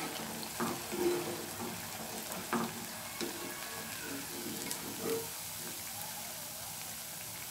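Potato vadas deep-frying in hot oil, a steady sizzle, with a few short clicks of a metal slotted spoon against the pan as the golden-brown vadas are lifted out.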